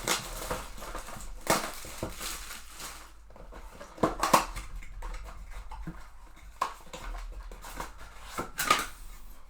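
A box of trading cards and its card packs being opened and handled: cardboard and wrappers crinkling and tearing, with several sharp snaps at irregular moments, the loudest about four seconds in.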